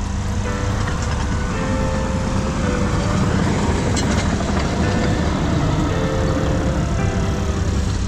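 Diesel engine of heavy earthmoving equipment running steadily under load.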